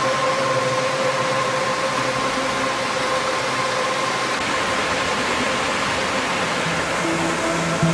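Mountain stream rushing over boulders and through shallow riffles: a steady, even rush of water. Faint held music notes sit under it, fading out by about halfway, and new notes come in near the end.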